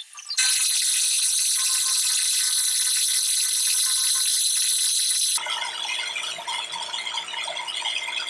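Milling machine cutter machining a round steel bar: a loud, steady, high-pitched cutting whine and hiss. About five seconds in it cuts off abruptly and gives way to a quieter, lower machine hum.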